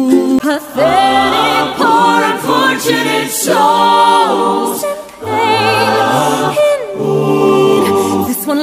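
Outro music: a song carried by several singing voices, with sliding notes and vibrato over low bass notes.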